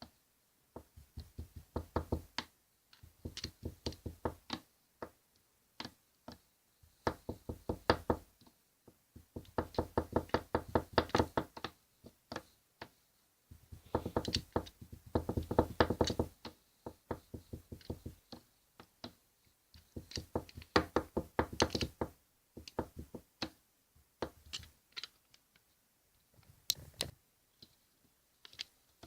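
Scrapers rapidly chopping and tapping on a steel cold plate while strawberry and banana are chopped into ice cream for rolled ice cream. The strikes come in quick runs of about ten a second, each run lasting a second or two, with short pauses between.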